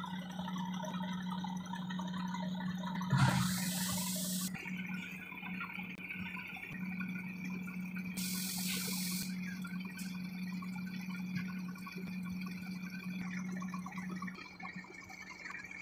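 Steady hum of an idling truck diesel engine, broken twice by loud bursts of hissing compressed air, about three seconds in and again about eight seconds in.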